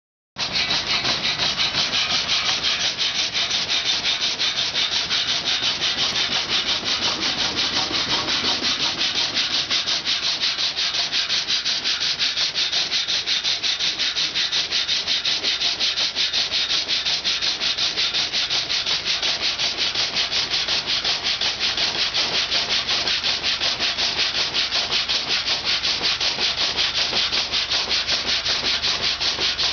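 Water-powered sawmill saw cutting through wood: a steady, even rasping rhythm of saw strokes.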